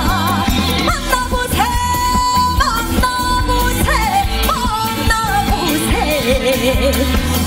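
Background song: a melody line with wide vibrato and long held notes over a steady bass beat.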